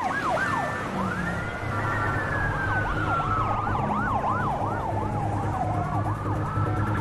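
Police car sirens, several at once: a fast yelp of about two to three sweeps a second over a slow wail that climbs, sinks gradually over several seconds and climbs again near the end, with a low rumble of vehicles beneath.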